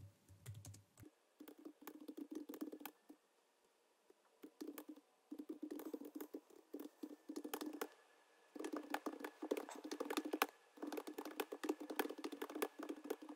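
Faint computer keyboard typing: fast runs of keystrokes with two short pauses, about four seconds in and about eight seconds in.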